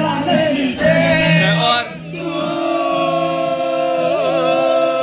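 Singing: several voices together for the first two seconds, then one long held sung note that wavers near the end.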